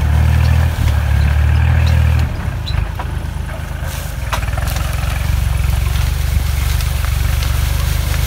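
Farm tractor engine running steadily as it tows a trailer loaded with sacks of corn, a low even hum that gets quieter about two seconds in. Scattered light clicks sound over it.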